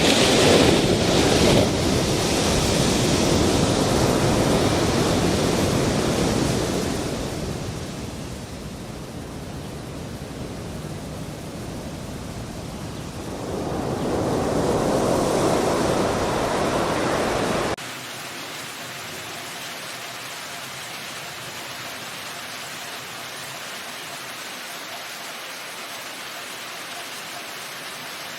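Loud rushing water noise that swells, eases and swells again, then cuts off abruptly about eighteen seconds in to a quieter, steady hiss of rain.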